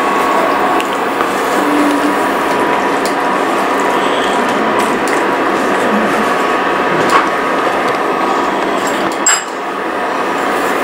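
Wooden spatula stirring and scraping chunks of vegetables in a nonstick frying pan over a steady hiss, with two sharp knocks in the second half.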